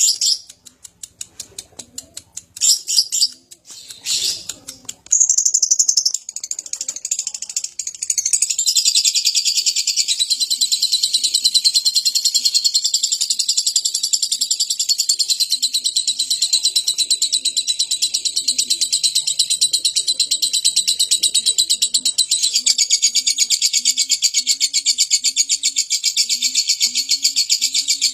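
Lovebird chattering: a few separate chirps, then from about eight seconds in an unbroken, very rapid high-pitched trill held for about twenty seconds, the long 'ngekek' song prized by bird keepers. Faint low notes repeat underneath in the second half.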